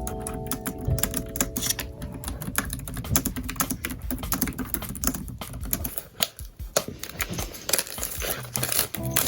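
Rapid, irregular clicking keystrokes of typing on a keyboard, with soft background music fading out at the start and returning near the end.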